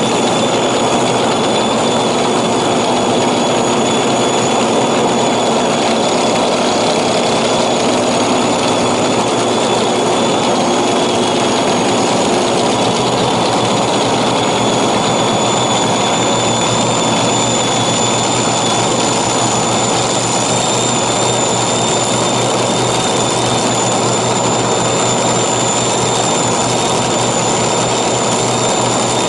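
Drag-racing dragster's engine idling loudly and steadily, with a thin high whine held over the roar and no revving.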